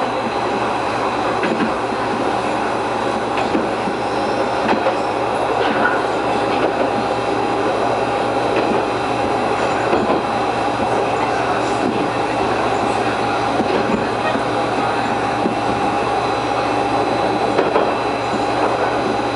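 Heisei Chikuho Railway diesel railcar running along the track: a steady running noise with a constant high whine and light, irregular rail clicks.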